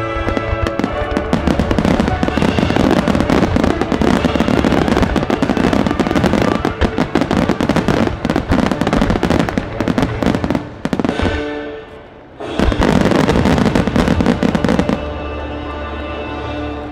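A starmine fireworks barrage: rapid, densely overlapping shell bursts over accompanying music. The bursts thin out briefly about twelve seconds in, resume, then stop about two seconds before the end, leaving the music playing on alone.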